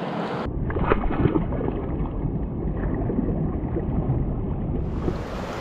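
Muffled, rumbling rush of wind and water on a covered microphone, with a few knocks; about five seconds in it gives way to a clearer, steady rush of flowing creek water.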